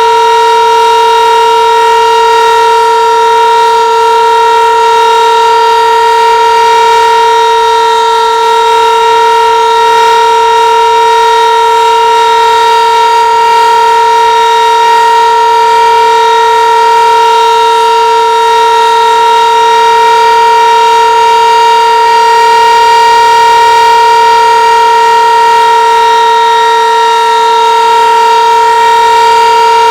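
Sentry 15V2T-B DC-powered outdoor warning siren sounding its steady alert, holding one loud, unwavering pitch.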